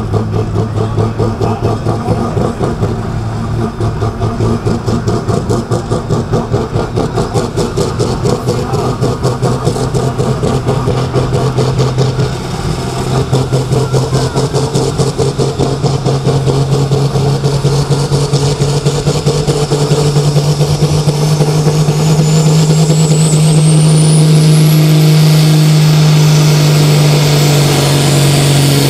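A turbocharged diesel engine in a Super Sport class pulling tractor, revving hard at the start line to build boost pressure. The note pulses rapidly at first, then grows louder and steadier from about halfway, and a whine rises steeply in pitch near the end as the turbo spools up. Dark smoke is the sign that there is enough boost to launch.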